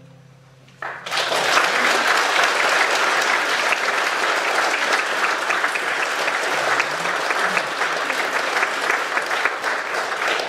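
Audience applause breaking out suddenly about a second in, at the end of a song, then continuing as steady clapping from a large crowd.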